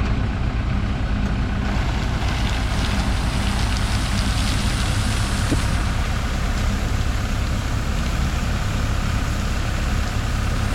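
An engine running steadily at a constant speed, with a rushing hiss over it from about two seconds in.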